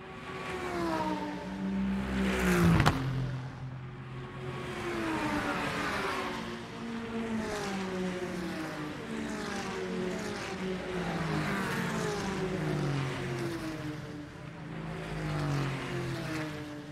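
A field of GT race cars, Porsche 911 Cup cars among them, passing one after another, each engine note falling in pitch as it goes by. The loudest pass, about three seconds in, sweeps sharply down.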